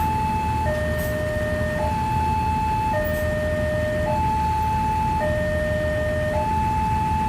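Railway level-crossing warning alarm sounding a steady two-tone hi-lo signal, switching between a higher and a lower tone about once a second: the warning that a train is approaching the crossing. A low steady rumble of traffic lies beneath.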